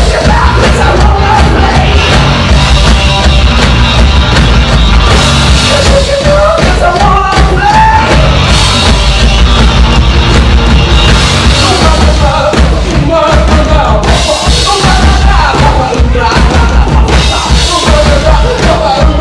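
Live rock band playing loud: distorted electric guitars and a drum kit, with a voice singing over them.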